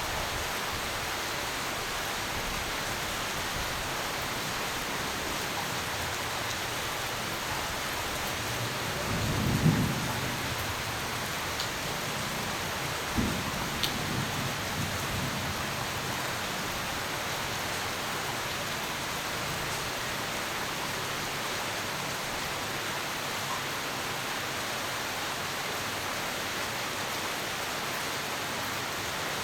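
Steady rain hissing throughout, with a rumble of thunder about a third of the way in and a second, sharper thunderclap with smaller follow-on rumbles a few seconds later.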